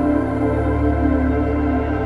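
Ambient background music: slow, sustained chords over a steady low bass note, changing chord right at the start.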